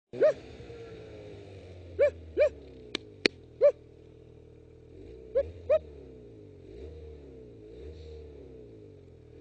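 Snowmobile engine running at low speed along a trail, its pitch drifting up and down. Six short, sharp, high-pitched squeaks or yelps cut through it, three of them in the first four seconds, and two sharp clicks come around three seconds in.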